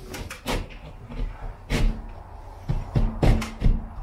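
Short, irregular rasping strokes of a blade worked by hand through plasterboard in a ceiling. The strokes come in a few bursts and are loudest and quickest near the end. The hand cutting finishes an opening that the drywall saw, set too shallow, did not cut through.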